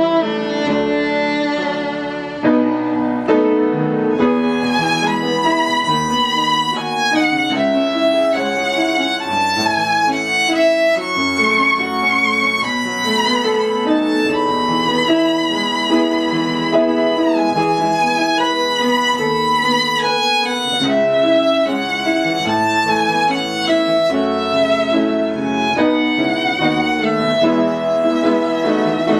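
Background music: a violin melody with wavering held notes over a steady accompaniment.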